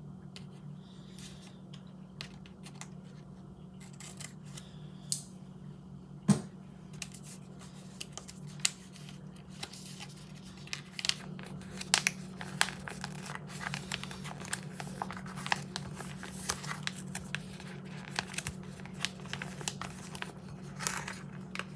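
Plastic lentil bag being handled, crinkled and peeled: scattered clicks at first, then dense crackling from about halfway through. A steady low hum runs underneath.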